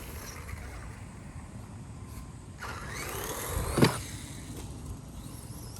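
Electric RC buggy's Traxxas brushed motor whining as the car accelerates, the pitch rising sharply about two and a half seconds in, with a loud knock just before four seconds, over steady rushing noise.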